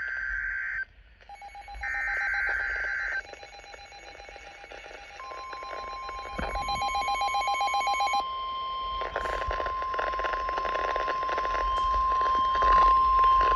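Emergency Alert System signalling: short digital SAME header bursts, rapid repeated electronic beeping, then the steady 1050 Hz NOAA Weather Radio warning alarm tone coming in about five seconds in and holding. The tone announces a severe thunderstorm warning.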